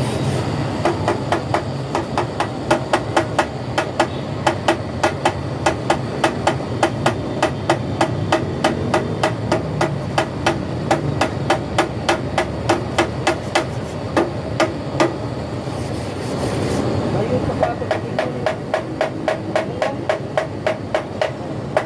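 Hammer blows in a quick, steady rhythm, about three or four a second, on a truck radiator being overhauled. The hammering stops for a second or two near the end, then starts again.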